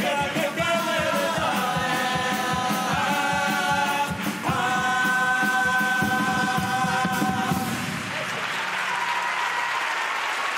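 A carnival murga choir singing the end of its song in several-voice harmony over guitars and drums, closing on a long held chord. About eight seconds in, the music stops and the audience applauds.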